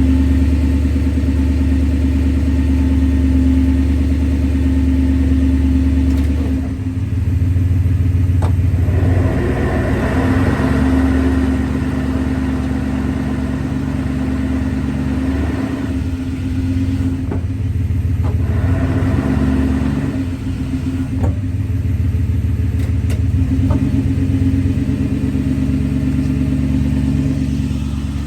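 Toyota Tundra V8 engine running, with a grinding noise that the owner says occurs only in park or in first gear and wants diagnosed. The engine's sound changes several times, with rougher stretches that come and go.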